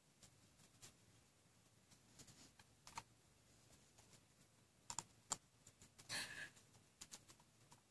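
Faint, sparse little clicks and mouth noises of a Chow Chow puppy gnawing on a plush toy, with a short puff of breath about six seconds in.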